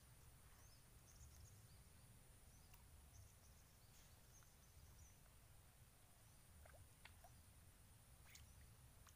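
Near silence: faint outdoor ambience with a few soft, high bird chirps scattered through it and an occasional faint click.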